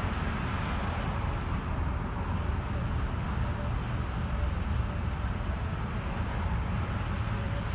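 Steady engine and road noise inside a moving Ataman city bus: a low rumble with a faint wavering whine above it.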